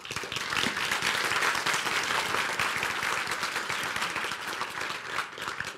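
Audience applauding: many hands clapping at once, starting abruptly and tapering off near the end.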